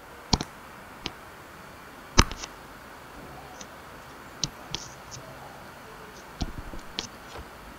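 Irregular sharp clicks and taps of a stylus tip on a drawing tablet as lines are drawn, the loudest a little over two seconds in, over a low steady hiss.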